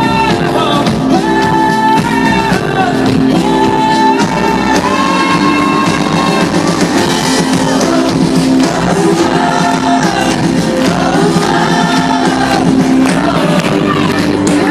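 Live pop-rock band performance: loud, layered wordless 'oh-oh' vocals sung over the band's accompaniment.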